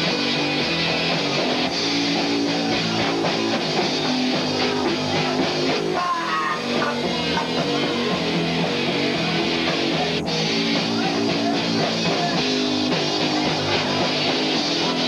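Live rock band playing: electric guitars and a drum kit in a steady, continuous loud wash, heard through a dull, low-fidelity recording.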